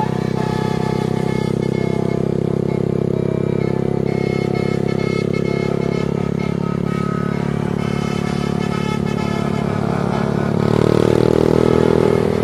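Tour bus's multi-tone telolet air horn playing a run of held notes that change in steps, over the running bus. It gets louder about ten and a half seconds in.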